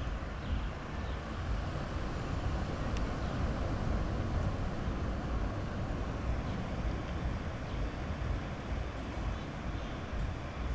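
Sea waves washing on a beach: a steady rushing noise with a heavy low rumble.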